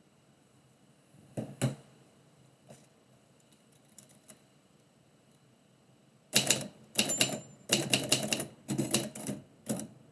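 Typewriter keys striking in quick bursts of several strokes each, starting about six seconds in, as a line of text is typed. Before that, a couple of single clicks about a second and a half in and a few faint ticks.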